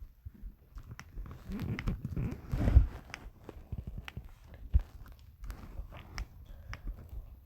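Stomach growling: a stretch of low gurgling from about a second and a half to three seconds in, amid scattered faint clicks.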